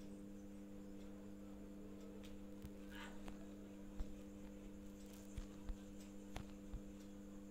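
Steady low electrical hum, with a few faint clicks in the second half.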